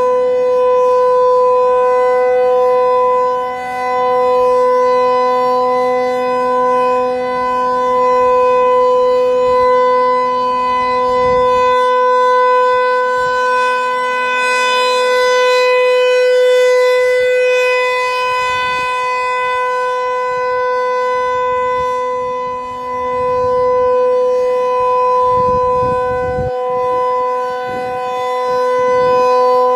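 Federal Signal 508-128 chopper siren sounding its steady single-tone Alert signal. The pitch holds level while the loudness swells and fades every several seconds.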